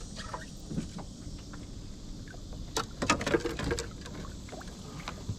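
Knocks and clatter from handling gear in a small fishing boat, loudest in a cluster about three seconds in, over a steady low rumble and high hiss.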